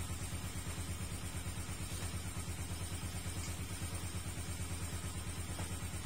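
An engine idling, a steady low throb with an even pulse of about seven beats a second.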